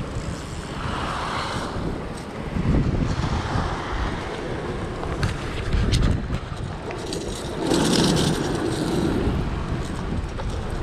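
Wind buffeting the microphone over waves washing and breaking against sea rocks, with louder surges about three seconds in, around six seconds and near eight seconds.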